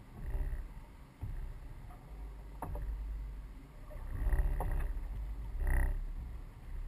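Fibreglass rowboat being rowed: the oars pull through the water in about four strokes, each a swelling rush of water, with a few sharp knocks from the oars in their oarlocks and a low rumble underneath.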